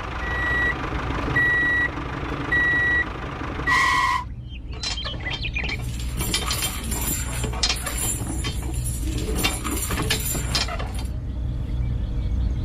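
Reversing alarm of a small construction machine beeping four times, one steady high beep about every second, over a low motor hum. From about four seconds in a dense crackling, rattling noise takes over.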